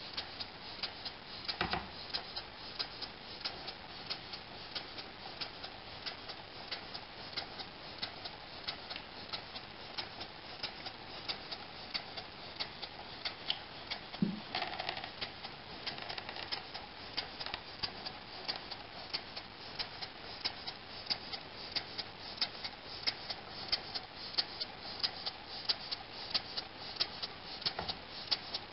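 Model over-crank vertical pumping steam engine running on compressed air at 5 PSI, ticking steadily and rapidly as it turns over.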